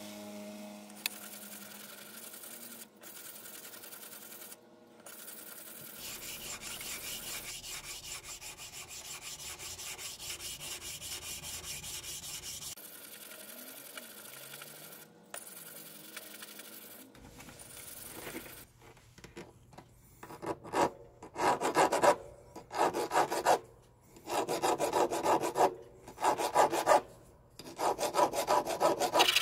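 Hand file rasping across a small knife-handle part in separate back-and-forth strokes, about one a second, starting about two-thirds of the way in. Before that comes a stretch of quieter, faster rubbing.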